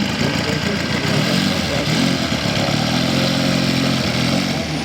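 Engines of large-scale radio-controlled model Boeing Stearman biplanes in flight, a steady drone whose pitch slowly rises and falls as they fly past.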